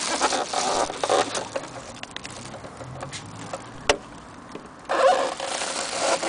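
Overlock sewing machine's motor running in two short bursts, with a single sharp click in between.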